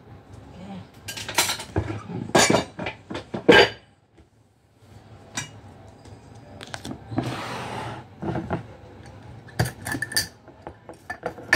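Kitchenware clattering and knocking on a counter. Near the end come sharp glass clinks as the clip-top lid of a glass storage jar is unclamped and lifted.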